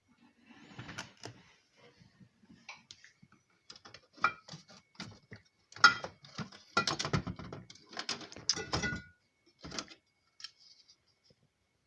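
Objects being handled: irregular knocks, clicks and rattles, busiest in the second half.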